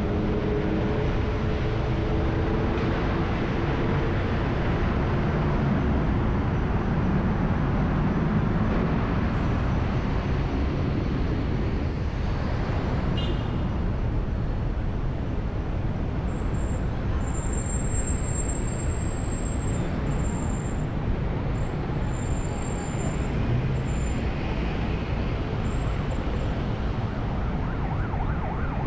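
Road and traffic noise from a car driving through city streets: a steady rumble and hiss of engine and tyres. An engine note falls in pitch at the start, and a thin high whistle-like tone comes and goes in the second half.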